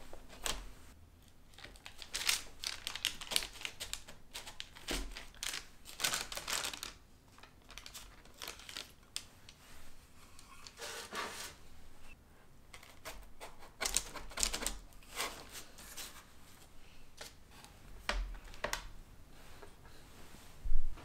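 Shortbread dough being cut with a wide metal blade pressed down onto parchment, then the cut squares lifted and set down on a parchment-lined baking tray: an irregular run of soft taps, scrapes and paper rustles. One sharp knock, the loudest sound, comes near the end.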